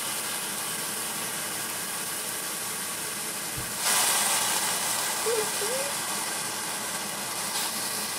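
Sliced pork and shiitake mushrooms sizzling in a hot stainless-steel frying pan. The sizzle swells suddenly a little under four seconds in as the meat is turned with a spatula, then settles back to a steady hiss.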